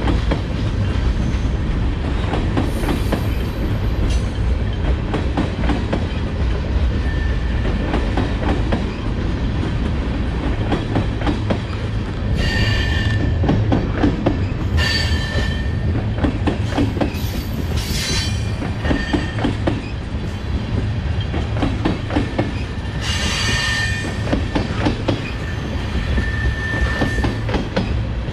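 Freight train cars rolling past with a steady low rumble and clicking of wheels over the rail joints. A high-pitched wheel squeal rises and fades several times, from about halfway through to near the end.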